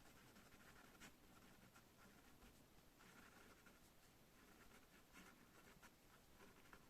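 Faint pen scratching on paper in short, irregular strokes, with a sharper stroke about a second in and a longer scratch about three seconds in.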